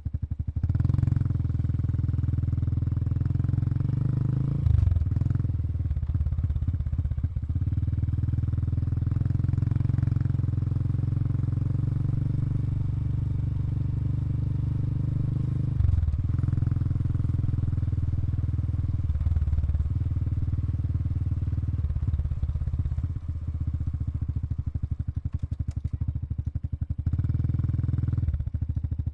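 Exhaust note of a Honda Super Cub 110 Pro's single-cylinder four-stroke engine running steadily at low revs, its tone shifting briefly a few times, around a second in, about five seconds in, and again near the middle.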